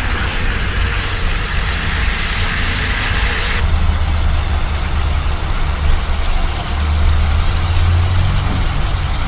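Chicken pieces sizzling in a frying pan over a steady low rumble. The hissing sizzle drops away sharply about a third of the way in, leaving mostly the rumble.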